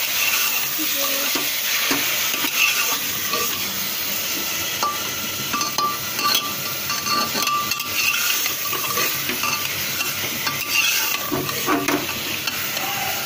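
Minced mutton sizzling in hot oil in a pressure cooker as it is browned, while a metal slotted spoon stirs it, scraping and clinking against the metal pot.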